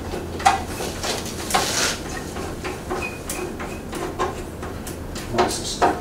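Hands working the metal wheel cover door of a benchtop band saw: a series of light clicks and knocks with a brief scrape, over a low steady hum.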